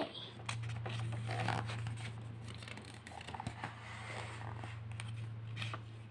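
Paper pages of a paperback book being turned by hand: rustling and sliding paper with a few light taps.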